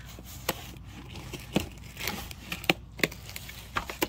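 Scissors cutting through packing tape and cardboard: a handful of sharp, irregular snips with crinkling and scraping between them.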